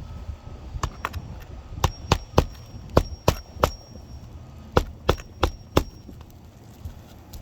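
Sharp, evenly spaced knocks, about a dozen, in three bunches: two about a second in, six over the next two seconds, then four more after a short pause, with a faint high metallic ring hanging after several strikes.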